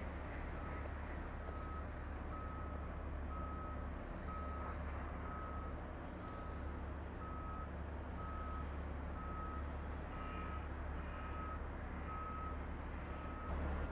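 Reversing alarm beeping at a steady pitch about once a second, over a steady low rumble.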